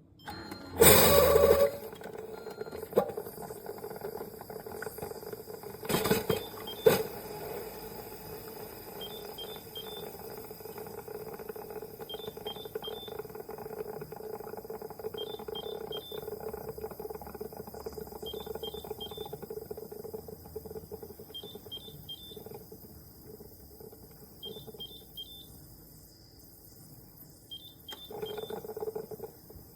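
Single-serve pod coffee maker running, a steady pump hum with a loud spurt about a second in and a few knocks over the next few seconds. A quick triple beep repeats about every three seconds from about nine seconds in.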